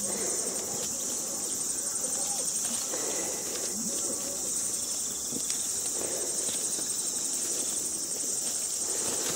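A steady, high-pitched insect chorus chirring without a break, with soft rustling of bramble leaves and stems as ripe blackberries are picked by hand.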